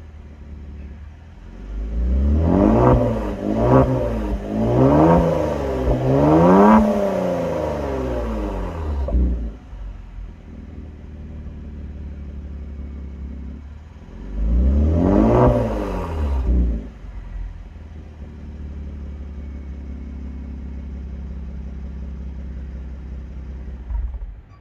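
2019 Kia Stinger GT's 3.3-litre twin-turbo V6 through a Bastuck aftermarket exhaust, revved while standing still: four quick revs one after another, back to idle, then one more rev and idle again. The engine sound stops near the end.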